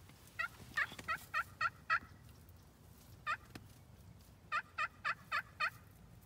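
Turkey call worked in hen-turkey yelps: a run of six quick yelps, a single yelp, then a run of five, each note dropping in pitch.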